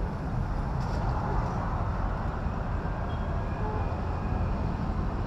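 Street-market background noise: a steady low rumble of traffic with faint voices.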